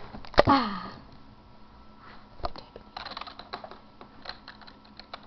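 Computer keyboard typing: scattered, irregular keystroke clicks in short groups. About half a second in, a knock with a brief falling voice-like sound is the loudest thing.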